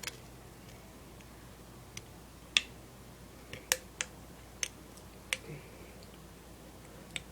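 Small pocket-knife scissors snipping thin can aluminum along a line: a series of short, sharp clicks, about eight of them, spaced unevenly.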